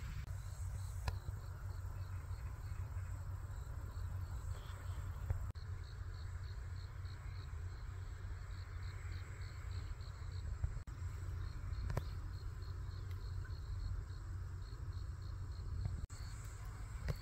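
Crickets chirping in short, evenly repeated high pulses, over a steady low background rumble.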